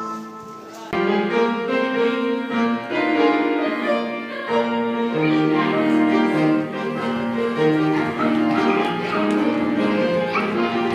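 Classical instrumental music led by piano, perhaps with strings. It gets suddenly louder and fuller about a second in.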